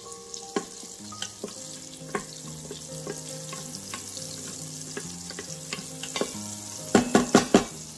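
Butter and olive oil sizzling in the stainless steel inner pot of an Instant Pot on sauté, with a wooden spatula stirring and scraping across the pot floor. A quick run of loud clicks comes near the end.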